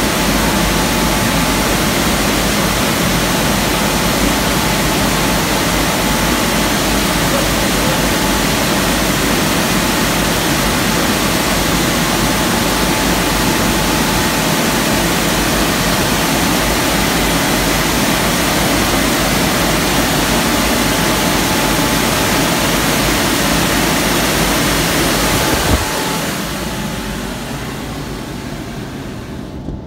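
WashTec SoftCare 2 Pro rollover's dryer blowers running as a loud, steady rush of air over the car, heard from inside the car, with a faint steady whine. About 26 seconds in, the blowing drops and fades away as the drying pass ends.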